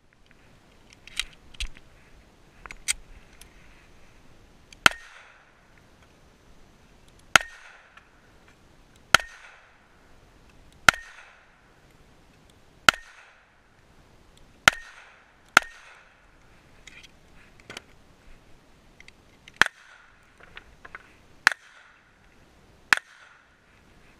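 Single gunshots from a 1911 pistol firing handloaded .45 ACP, about ten sharp shots at a steady pace of roughly one every two seconds. A few fainter pops come in the first three seconds.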